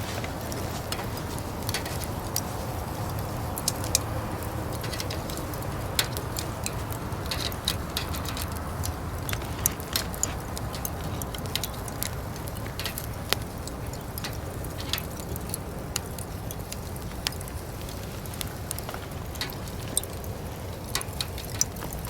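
Wood or charcoal fire burning in a fire pit, crackling with irregular sharp pops over a steady low rumble.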